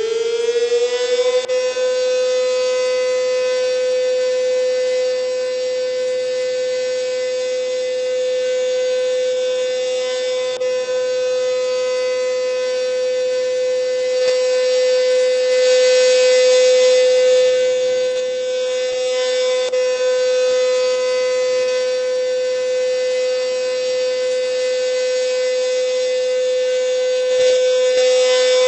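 Werden P-127 alert siren winding up in pitch over the first second or so, then holding one steady, loud tone.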